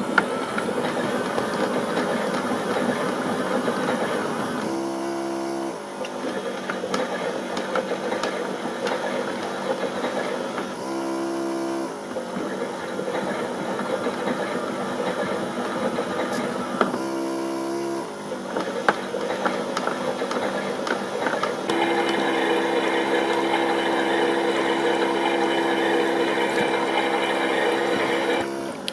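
Battery-powered Theo Klein toy Miele Novotronic washing machine running its wash: a small electric motor whirring as the drum tumbles. The sound changes briefly about every six seconds as the drum pauses and reverses direction.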